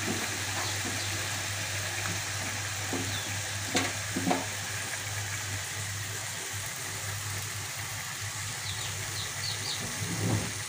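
Chicken pieces and potato chunks frying in mustard oil in an aluminium kadai, a steady sizzle throughout, with two short knocks about four seconds in.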